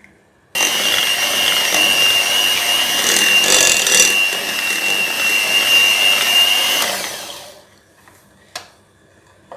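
Electric hand mixer running at low speed, its beaters whisking icing sugar into butter-and-cocoa frosting. It starts suddenly about half a second in, runs steadily with a high whine, and winds down after about seven seconds.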